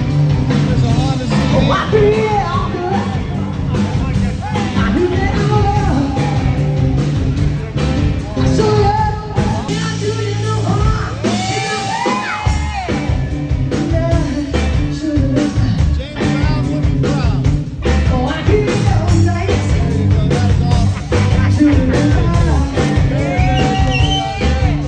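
Live rock band playing, with a woman singing lead into a microphone over drums and a steady beat.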